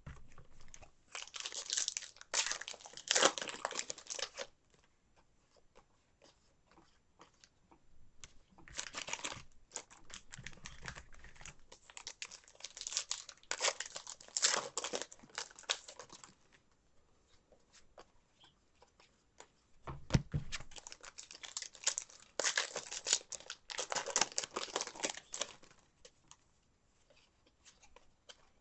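Foil baseball card packs being torn open and their wrappers crinkled, in three spells of tearing and rustling with quiet gaps between. A low knock comes about twenty seconds in.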